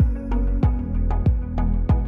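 Background music with a steady beat: a deep kick drum about one and a half times a second, lighter percussion between the kicks, and sustained tones underneath.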